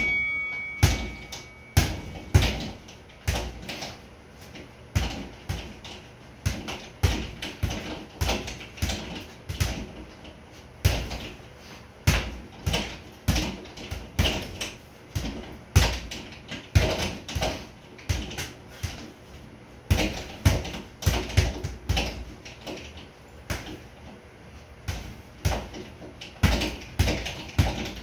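Boxing gloves hitting a sideways-mounted double-end (kangaroo) bag in quick irregular combinations, sharp slaps as the bag snaps away and rebounds, with short pauses between flurries. A short electronic beep sounds at the very start.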